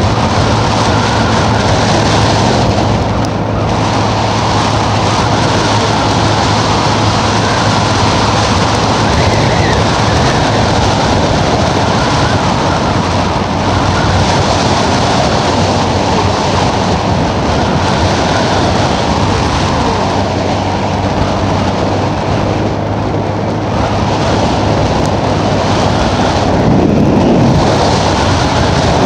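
Wind rushing over the microphone of a moving gas-powered vehicle, over a steady low engine drone.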